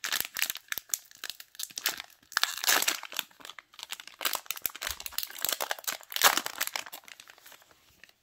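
Plastic trading-card pack wrapper being torn open at its crimped seam and crinkled as it is pulled apart around the cards. The crackling is dense and irregular, loudest about two to three seconds in and again around six seconds, and dies away near the end.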